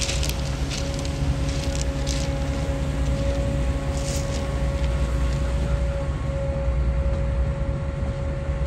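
Heavy engine running steadily: a low rumble under one steady high whine, with some wind on the microphone.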